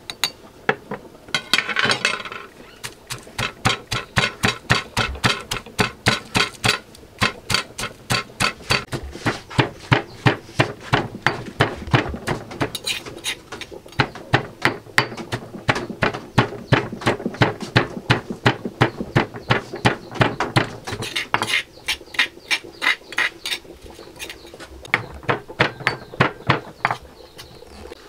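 A heavy stone pestle pounding in a stone mortar with a fast, steady rhythm of about two to three strikes a second, crushing roasted seeds and salt into a paste.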